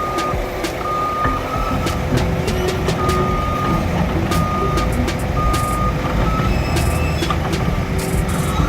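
Construction machine's reversing alarm beeping about once a second over a diesel engine's low rumble, with frequent sharp clanks and clicks from the machinery.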